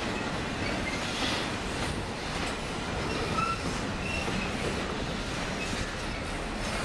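Double-stack container cars of a Union Pacific intermodal freight train rolling past: a steady rumble and rattle of steel wheels on the rails. Brief, high wheel squeals come and go.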